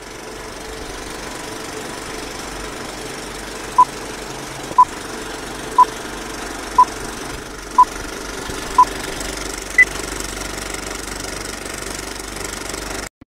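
A countdown of seven short electronic pips a second apart over a steady hiss and hum. The first six pips are at one pitch and the last is higher.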